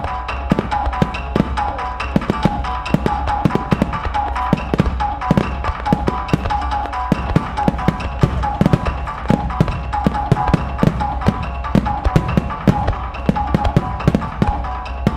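Music with drums playing at a fireworks display, mixed with many sharp, irregular bangs and pops of fireworks bursting.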